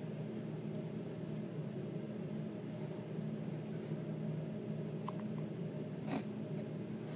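A one-month-old baby's small hiccups, two short ones near the end, over a steady low hum.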